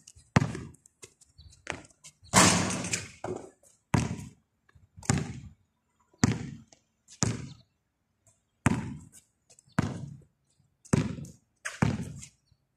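Basketball bouncing on a concrete court as it is dribbled, sharp single bounces at about one a second with a few short pauses.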